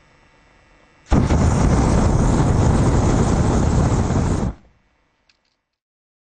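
Explosion-style sound effect: a sudden loud rush of noise, heavy in the lows, that starts about a second in, holds steady for about three and a half seconds and then cuts off.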